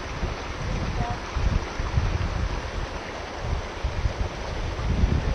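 Wind buffeting the microphone in irregular low gusts over a steady rushing hiss outdoors.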